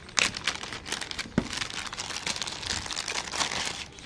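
Packaging being handled and opened: a dense run of crinkling and rustling, with one sharp knock about a second and a half in.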